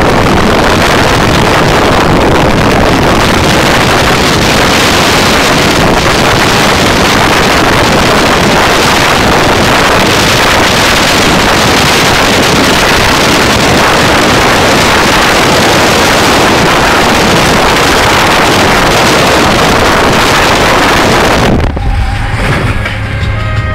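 Loud wind rushing and buffeting over the microphone of a phone held out of a car driving fast along the beach. About two seconds before the end the rush drops away to the car's steady low cabin hum, with music playing.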